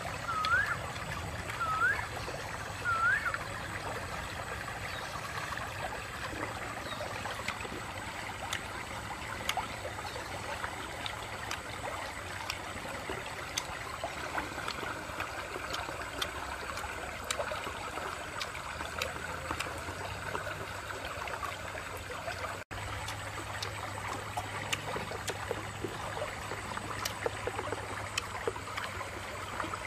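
Shallow stream trickling steadily over rocks. A few short rising chirps sound in the first three seconds.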